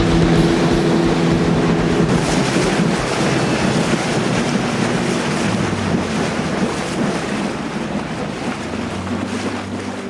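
Boat motor running over rushing water with wind buffeting the microphone. The engine note drops lower about halfway through, and the noise eases off toward the end as the boat slows on reaching the stop.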